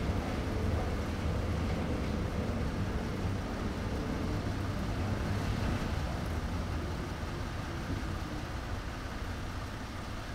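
Steady low rumble as a steam locomotive is slowly turned on a turntable, easing off slightly toward the end.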